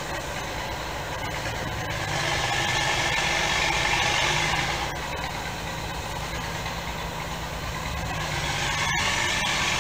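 An old engine idling with a steady low rumble. A rushing noise swells over it twice: about two seconds in, easing off near five seconds, and again near the end.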